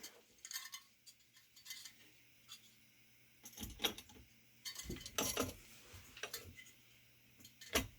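Scattered light metal clicks and clinks as a tower CPU cooler's heatsink and its spring-loaded mounting screws are set down and pushed into place on the mounting brackets.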